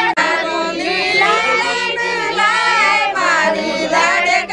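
A group of women singing a traditional wedding song together, several high voices overlapping.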